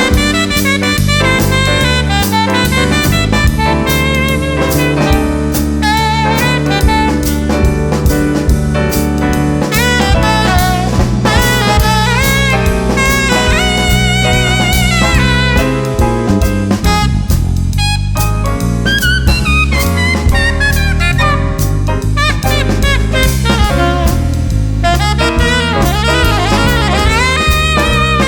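Jazz combo playing: a horn carries the melody over a bass line and drum kit.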